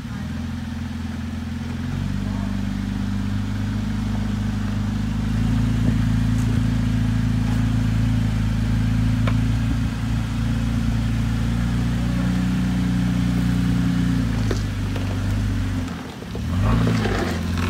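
Third-generation Toyota Tacoma's engine running at low, steady throttle as the truck crawls up over rock, its pitch stepping up a couple of times as more throttle is fed in. Near the end it drops, then revs up and down, with a few sharp clicks.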